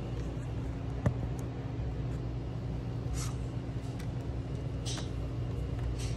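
Handling of a 4K Blu-ray steelbook package: a sharp click about a second in, then brief rustling swishes as the cardboard slipcover slides off the metal case, over a steady low hum.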